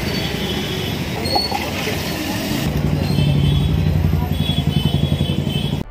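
Roadside street noise of traffic. About two and a half seconds in, a motor close by starts a steady low hum that pulses quickly, like an engine idling.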